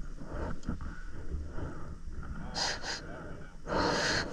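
A person breathing hard, with two short sharp breaths about two and a half seconds in and a longer one near the end, over a low rumble.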